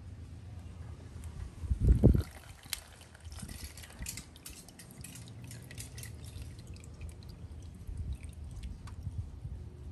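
Used engine oil trickling and dripping from a scooter's open drain port into a plastic drain pan during an oil change, with scattered small patters of drops. A single low thump about two seconds in is the loudest sound.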